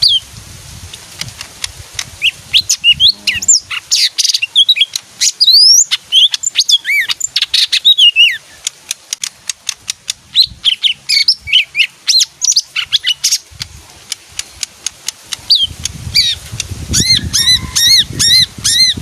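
A leafbird singing a varied song of quick whistled notes and chirps, rising and falling in pitch, ending in a run of about five repeated notes.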